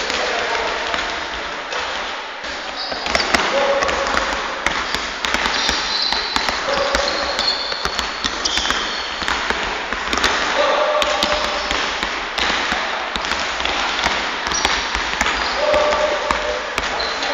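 A basketball being dribbled on a hardwood sports-hall floor, the bounces ringing in the large hall, with short high squeaks from shoes on the court.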